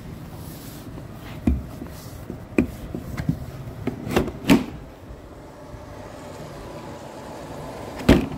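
Handling noise on a handheld camera: a handful of sharp knocks and bumps, the loudest about four and a half seconds in and another near the end, over a steady low background rumble.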